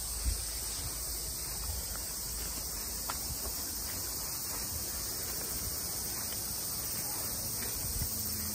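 A steady chorus of summer insects in dense hillside vegetation, with faint footsteps on a gravel path underneath.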